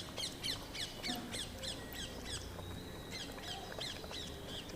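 A bird calling in a fast series of short, downward-sliding notes, about five a second, with a thin steady high tone running under them in the middle.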